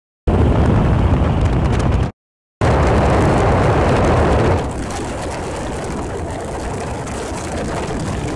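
Outboard-powered bass boat running at speed behind its 2004 Evinrude 150 HP DFI V6 two-stroke, heard mostly as heavy wind rush on the microphone with engine and water noise. It drops out for half a second about two seconds in and settles a little quieter about four and a half seconds in.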